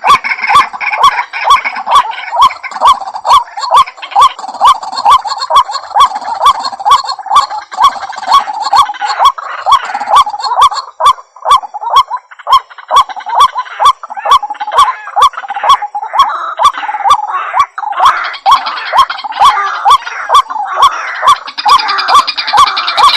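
White-breasted waterhen calling continuously: a harsh, repeated 'ruak' note about two or three times a second, with overlapping calls growing busier near the end.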